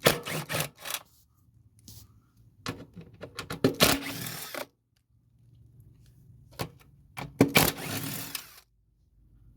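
Metal socket tools clattering and clicking in three bursts of a second or two each, as a socket is found and the bolts of a lawnmower cover are undone.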